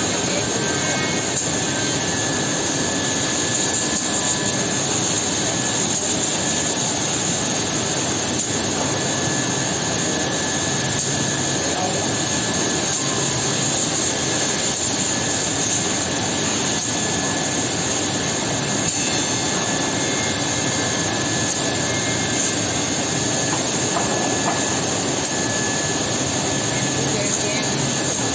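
Holztek HT-6SD-2H six-sided CNC drilling machine with two drill heads running while it drills a wooden panel: a steady machine rush with a high hiss and a faint steady tone.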